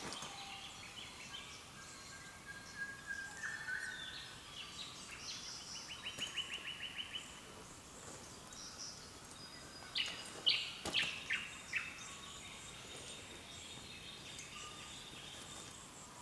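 Several wild birds calling in an early-morning dawn chorus, with whistles and chirps overlapping. About six seconds in, one bird gives a fast run of repeated notes. Around ten seconds in comes a loud burst of sharp calls.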